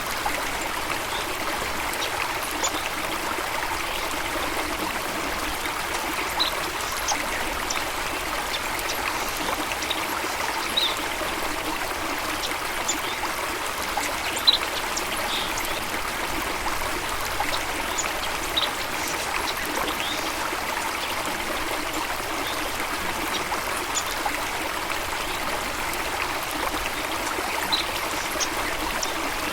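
Running water of a stream or small waterfall, flowing steadily, with faint, brief high chirps now and then.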